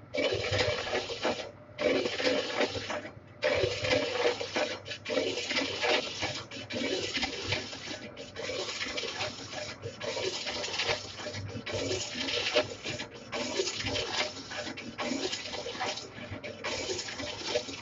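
Lathe cutting tool taking a 5 mm deep cut on a large-diameter pipe: a hissing, scraping cut noise that breaks off briefly every second or two.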